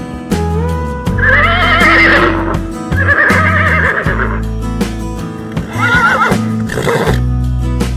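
Horse whinnying several times, quavering calls laid over steady background music.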